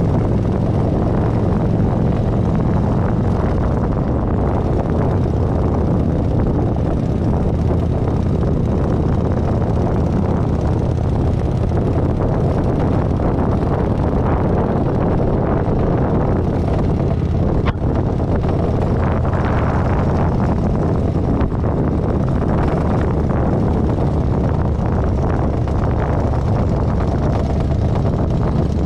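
Kawasaki Vulcan 900 V-twin engine running steadily as the motorcycle cruises slowly, with wind noise on the microphone.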